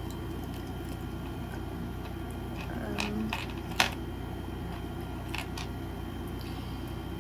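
A fan hums steadily, with a few small clicks and taps from small objects being handled. The sharpest click comes just before four seconds in.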